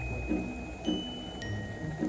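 Background music: slow, single high bell-like notes, each ringing on for a second or so.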